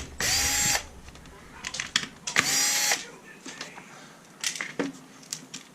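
Cordless powered screwdriver running in two short bursts about two seconds apart, backing screws out of a plastic RC car chassis, with small clicks of parts being handled between them.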